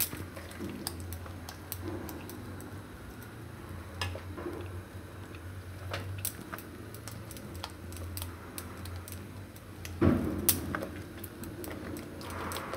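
Silicone spatula stirring thick spinach purée in a nonstick kadai: irregular clicks and taps of the spatula against the pan, with a louder knock about ten seconds in, over a low steady hum.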